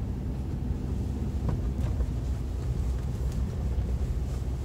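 Honda Element's 2.4-litre four-cylinder engine and tyres, a steady low rumble heard from inside the cabin while driving slowly on a snow-covered track.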